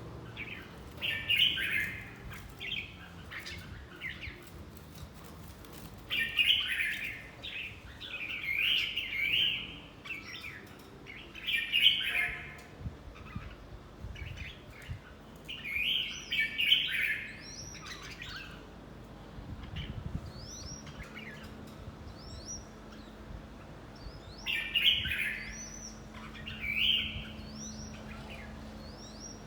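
Red-whiskered bulbul song: short bursts of loud, quick warbling phrases, each one to three seconds long and several seconds apart, with a few thinner, higher chirps between them.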